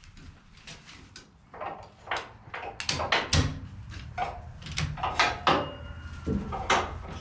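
Ratchet tie-down straps and their metal buckles being worked, a run of sharp, irregular clicks and clanks.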